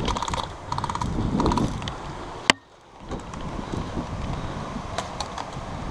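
Airsoft electric guns firing short full-auto bursts, each a rapid run of clicks about twenty a second, three bursts in the first second and a half. A single sharp crack comes about halfway, after which the sound drops away abruptly, and a few scattered single clicks follow.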